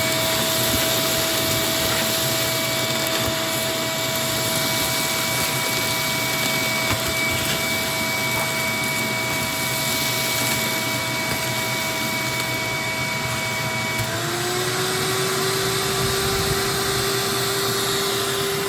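Wet/dry shop vacuum, filter removed, running steadily as it sucks water out of a drainage basin: a loud whine over a rushing hiss. About fourteen seconds in, its pitch shifts and a lower tone takes over.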